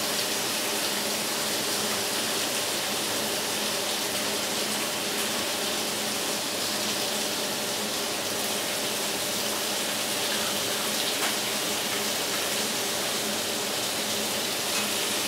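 Food sizzling in a frying pan on the stove: a steady, even hiss.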